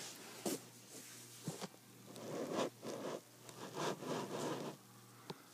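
Rustling and scraping of plastic toys and Lego pieces being handled on carpet close to the microphone, with a couple of sharp clicks near the start and a run of scraping about two seconds in.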